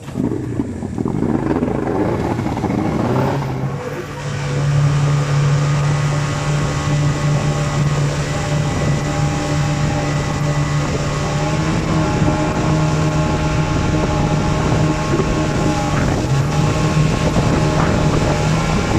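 A river longboat's outboard motor running steadily under way, over the rush of water along the hull. About four seconds in the engine note dips briefly, then settles a little louder and steady.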